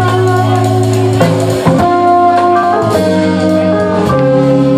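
Live jazz band playing: drum kit, electric guitars, keyboard and saxophone, with long held chords that change every second or so.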